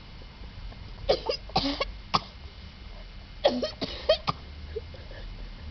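A man coughing in two short fits of a few harsh coughs each, about a second in and again about three and a half seconds in. He is reacting to a burning powder he has just sniffed up his nose.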